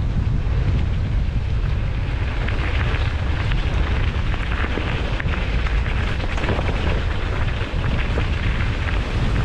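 Wind buffeting the microphone: a loud, steady, deep rushing noise that wavers unevenly, without pause.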